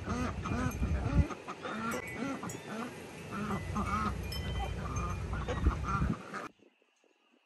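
A flock of white domestic ducks quacking repeatedly as they walk, over a low rumble of wind on the microphone. The sound cuts off suddenly near the end.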